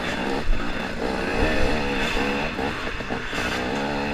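KTM 250 XC-W two-stroke dirt bike engine revving up and down as the rider works the throttle through tight wooded trail.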